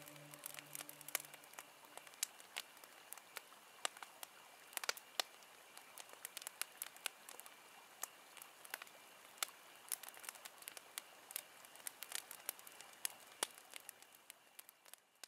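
Wood fire crackling faintly with irregular sharp pops, which fade out near the end. The last held notes of music die away in the first second or so.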